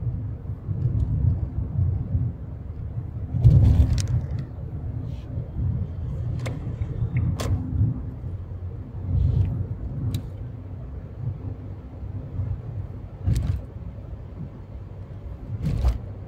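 Car interior road noise: a steady low rumble of engine and tyres while driving, with a handful of short sharp clicks or knocks at irregular moments, the loudest about three and a half seconds in.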